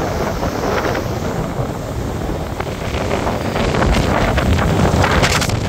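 Strong gusting wind buffeting the microphone, with rough surf breaking on the beach underneath. The gusts grow stronger about four seconds in.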